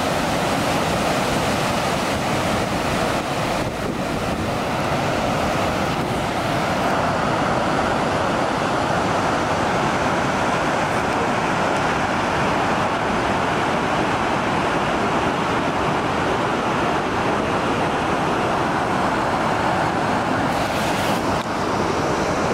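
Whitewater river rapids: fast water pouring over rocks with a loud, steady rush.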